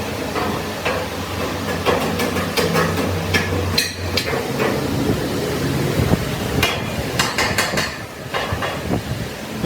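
Metal being struck with a hammer, irregular sharp blows, over a low steady machine hum that drops away about four seconds in.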